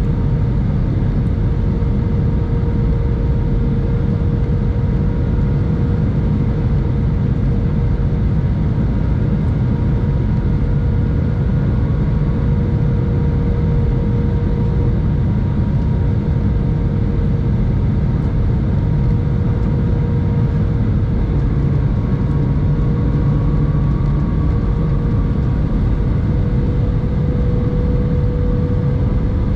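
Airliner cabin noise inside an Airbus A319 descending on approach: a steady low rush of airflow and engines with a constant mid-pitched engine hum over it.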